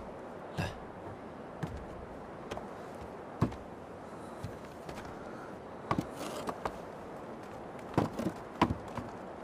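Sparse footsteps and light wooden knocks: about a dozen separate sharp taps, several of them close together near the end, over a steady faint background hiss.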